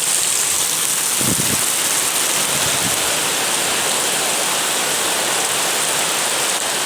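Heavy rain falling hard on surfaces in a loud, steady hiss during a hailstorm downpour.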